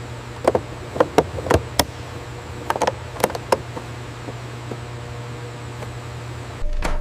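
A quick run of sharp knocks and taps on hard objects, about a dozen in the first three and a half seconds, over a steady low hum. Near the end the hum cuts off and a deeper, louder rumble takes over.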